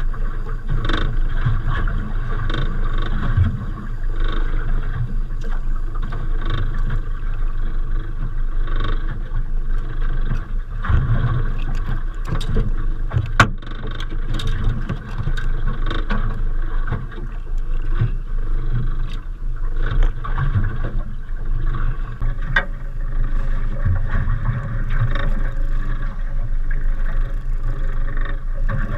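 Steady wind and water noise aboard a small boat at sea, with scattered sharp knocks and clicks, one louder knock about halfway through.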